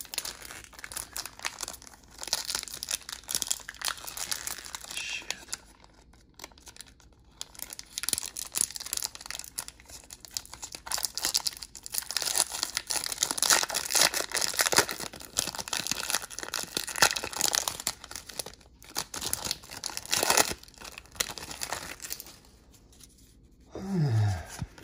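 Hands handling a stack of trading cards and their pack wrappers, rustling and shuffling in irregular bursts with scattered sharp clicks. A short low hum falling in pitch comes near the end.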